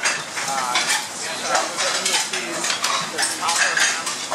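Restaurant kitchen clatter: metal pans, spoons and plates clinking and scraping again and again, with cooks' voices in the background.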